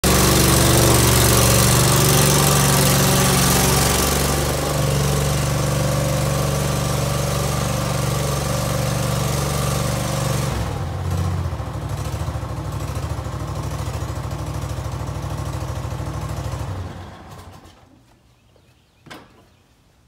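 Case 1816B skid steer's engine running steadily, its note changing about halfway through. The engine is then shut off and winds down to quiet a couple of seconds before the end, followed by a few light knocks.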